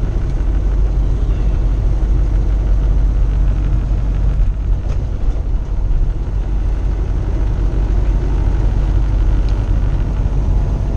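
Steady drone inside the cab of a 2015 Kenworth T680 semi truck driving at road speed: the truck's engine and road noise, heaviest in the low range.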